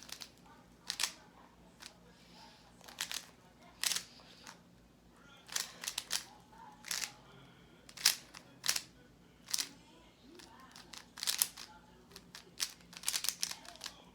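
Layers of a 3x3 Rubik's cube being turned by hand during a solve: sharp plastic clicks coming singly and in quick irregular runs, with pauses between bursts.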